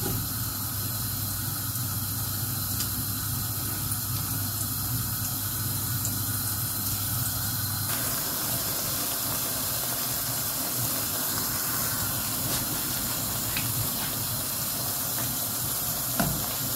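Hot oil sizzling steadily around pieces of namak pare dough deep-frying in a wok. A low hum under it drops out about halfway through.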